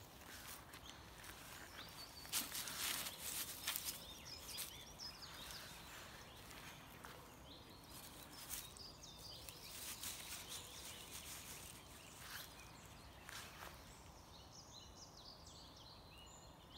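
Faint rustling and scuffling in grass as a small dog and a cat play-fight, in irregular bursts that thin out over the last few seconds, when a few birds chirp faintly.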